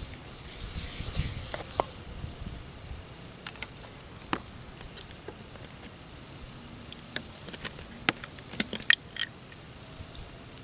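Wood fire crackling under a wok of fish simmering in turmeric sauce: scattered sharp crackles and clicks over a faint hiss, with a few louder clicks about eight to nine seconds in.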